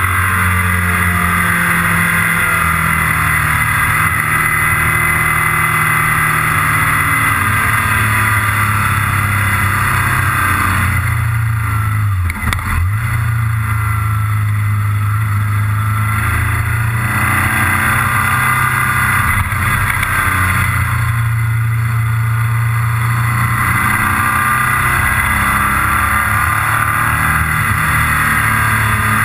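Motorcycle engine heard from on board while riding at road speed, running steadily as the pitch shifts with the throttle, with a brief drop and pick-up about twelve seconds in.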